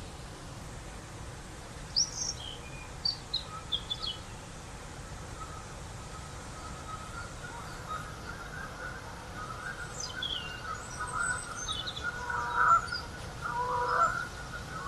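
Wild birds calling: a few short, high chirps about two seconds in, then a run of lower calls that builds and grows louder through the second half, over a steady faint hiss.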